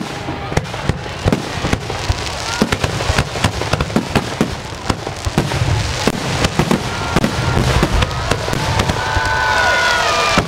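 Fireworks display barrage: many shells bursting in rapid, overlapping succession, a dense run of sharp bangs and pops, with a few drawn-out tones appearing near the end.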